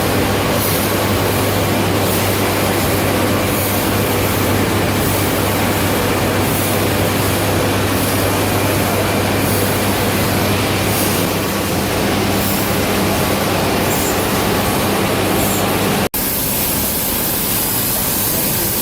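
Stationary steam engine at a sugar mill running with a steady mechanical din over a constant low hum. After a sudden cut near the end, a steady steam hiss comes forward.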